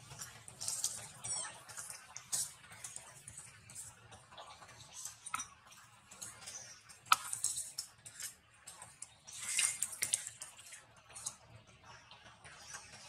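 Dry leaf litter rustling and crackling in irregular bursts and sharp clicks as a baby macaque scrambles over the forest floor. The loudest bursts come about seven seconds in and again around ten seconds in.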